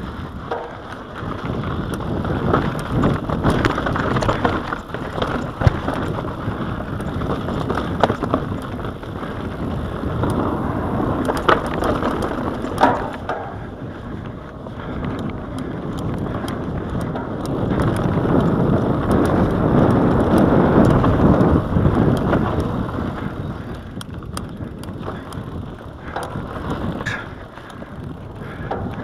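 Mountain bike ridden down dirt singletrack: tyres crunching over dirt and loose rock, the bike rattling with scattered sharp knocks, and wind rushing over the microphone. The rush swells louder for a few seconds about two-thirds of the way through.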